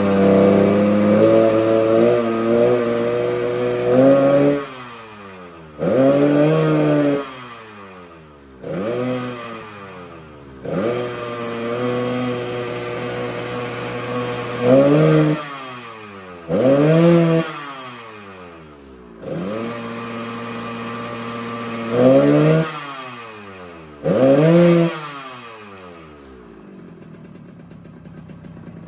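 Yamaha RX-King 135 two-stroke single-cylinder engine, freshly ported and bored oversize, revved hard: held high at first, then about eight sharp throttle blips that rise and fall back to a lumpy idle between them. Near the end it settles to a quieter idle. The rasp is the 'ngorok' growl that its ngorok air filter is fitted to give.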